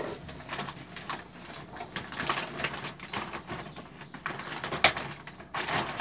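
Recyclable plastic and glass packaging being handled and dropped into a plastic bag: irregular rustling, knocks and clatter.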